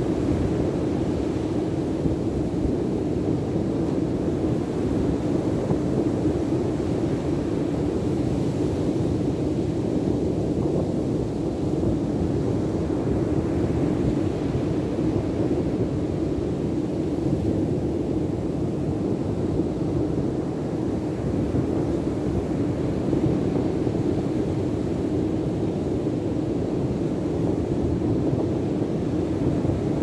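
Steady wind rumbling on the microphone, mixed with the wash of breaking surf.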